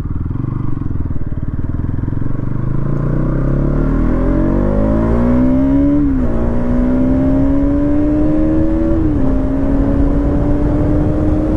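Bajaj Pulsar NS200's single-cylinder engine accelerating hard through the gears. Its pitch climbs, drops sharply at an upshift about six seconds in, climbs again and drops at a second upshift about three seconds later, then holds nearly steady at cruising speed. Wind rushes over the microphone throughout.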